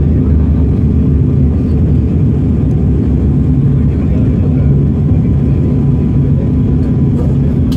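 Steady, loud low rumble of an airliner cabin heard from a window seat, engine and airflow noise with a faint even hum. The aircraft is on its final approach to land.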